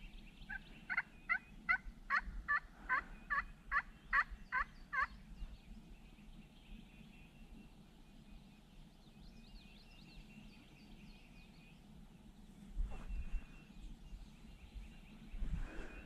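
Wild turkey calling: a run of about a dozen quick, falling notes, a little over two a second, lasting some four seconds. A couple of low bumps follow near the end.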